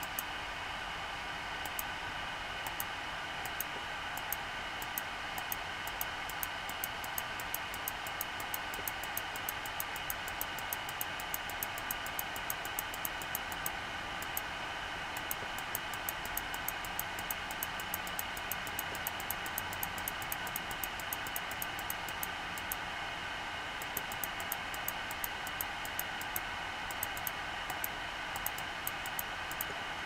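Steady machine hum with several high steady tones, overlaid by a train of faint ticks at about two to three a second that pauses briefly twice.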